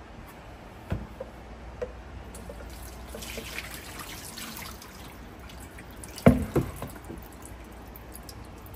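Blended smoothie being strained, liquid dripping and trickling through a strainer, with a small knock about a second in and a sharper, louder knock about six seconds in.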